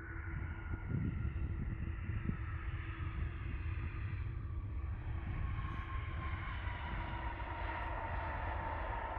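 Jet airliner landing close by: a steady low engine rumble with whining engine tones that slowly fall in pitch, swelling during the first second and then holding loud.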